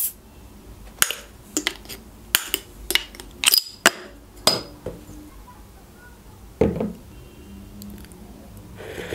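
A crown cap pried off a glass beer bottle with a metal bottle opener: a quick burst at the start, then a string of sharp metal-on-glass clicks and clinks, some ringing briefly. A single duller knock comes about two-thirds of the way through.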